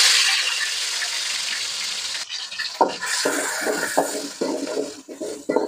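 Ginger-garlic paste frying in hot oil in an aluminium kadai: a loud sizzle right after it goes in, slowly dying down. From about three seconds in, a steel spoon stirs and scrapes against the pan several times.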